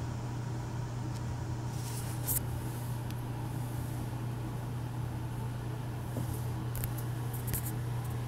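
Electric fan running with a steady low hum, with a few faint clicks over it.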